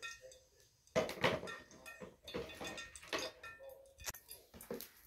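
Metal pots and dishes being handled, giving three short spells of clattering and clinking, the first about a second in.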